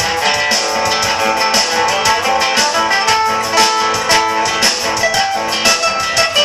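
Music with plucked string instruments, guitar-like, played as a quick run of notes over a steady rhythm.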